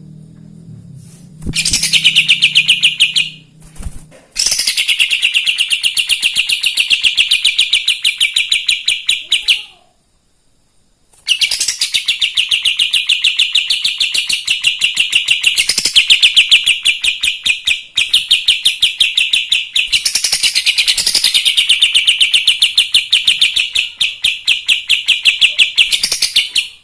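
Kapas tembak songbird singing in full voice (gacor): long runs of rapid, high repeated notes, broken by short pauses, the longest about ten seconds in.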